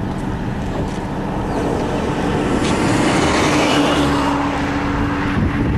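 A vehicle's engine running steadily, with wind noise on the microphone; the engine note grows louder and steadier about halfway through.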